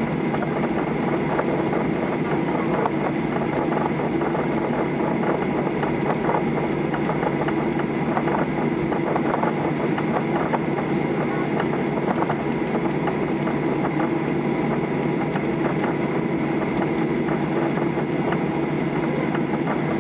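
Steady cabin noise of a Boeing 737-800 taxiing, its CFM56-7B engines running evenly at low thrust under a constant hum, without the rising roar of a takeoff roll.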